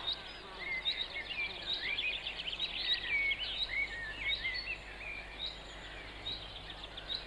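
Birds chirping outdoors: many short, quick rising and falling chirps from several birds overlapping, with a faint steady low hum underneath.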